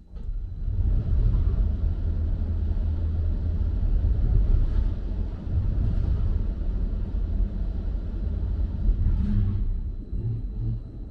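Machinery of an automated underground parking system moving a parked car's pallet sideways: a steady low rumble that starts abruptly and eases off near the end.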